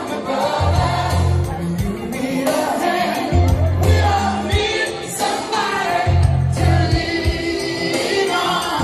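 Music with singing voices over a heavy bass line that comes in and drops out every second or so.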